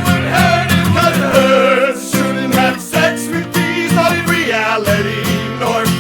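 Music from a song: guitar accompaniment with a steady beat and a wavering melody line above it.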